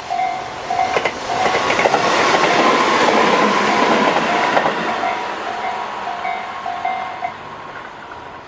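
Railway level-crossing bell (Tobu sound C, slow-tempo type) ringing about twice a second while a Tobu 20400 series electric train passes, its wheels clattering over the rails. The train noise swells about a second in, peaks in the middle and fades. The bell stops about seven seconds in.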